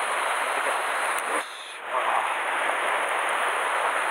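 Steady wash of sea surf against rocks, mixed with wind. It dips briefly about a second and a half in, then comes back.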